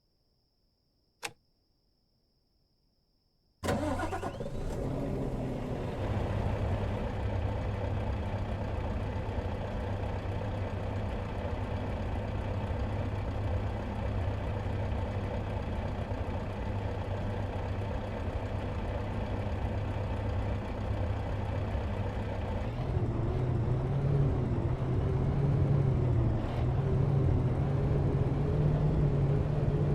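A single click, then a Scania R520's V8 diesel engine starting about three and a half seconds in and settling to a steady idle through its stock exhaust. Past the two-thirds mark the idle steps up slightly in speed and loudness.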